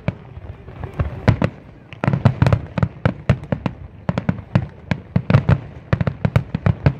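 Aerial firework shells bursting in quick succession, sharp bangs several times a second. The bangs thin out for about a second near the start, then come densely again.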